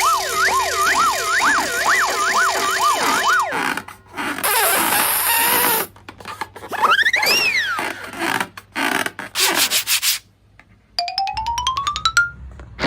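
A string of cartoon sound effects: a wobbling, warbling tone for the first three seconds or so, then a burst of hiss. Next comes a tone that swoops up and back down, and near the end a tone that climbs steadily over rapid clicks.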